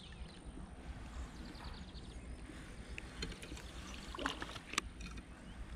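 A hooked traíra swirling and splashing at the pond surface near the bank, with a few short sharp splashes about four to five seconds in, over a steady rumble of wind on the microphone.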